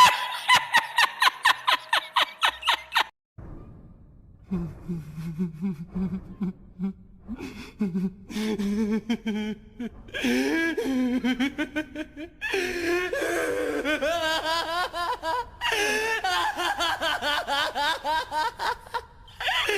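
Laughter sound effects played one after another. A quick, rhythmic, high-pitched laugh stops about three seconds in. After a short pause comes a lower-voiced laugh, then longer stretches of continuous laughing.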